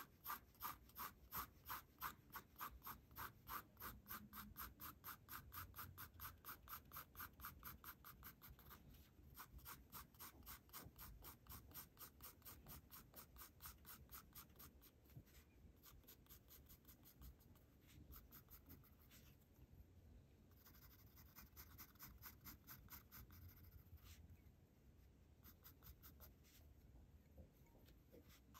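Faint graphite pencil shading on paper: quick, even back-and-forth strokes at about five a second, turning softer and more broken with short pauses after about halfway.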